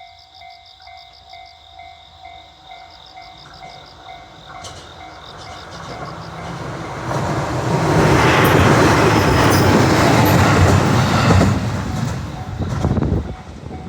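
A JR 211-series electric train passes over a level crossing, its running noise building from about five seconds in to a loud peak and dying away near the end. Throughout, the crossing's warning bell dings over and over at a steady beat.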